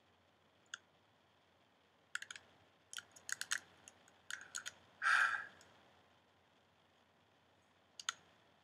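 Scattered light clicks, then a single short sneeze about five seconds in, the loudest sound, followed by a couple more clicks near the end.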